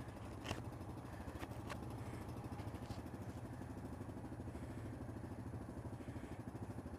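ATV and side-by-side engines idling while they warm up on a cold morning: a steady low hum with a quick, even pulse. A few short clicks come about half a second and a second and a half in.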